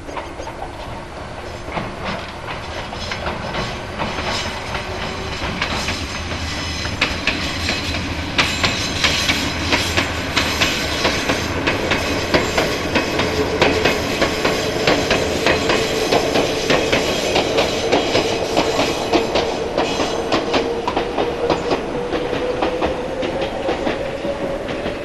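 Ichibata Electric Railway electric train running past, its wheels clattering over the rail joints, getting louder and then easing off. Through the second half a thin whine rises slowly in pitch.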